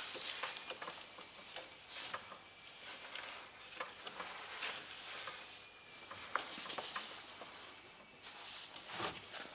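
Quiet scuffs, rubs and scattered small clicks of hands working a new rubber seal around the frame of a bus's emergency exit window.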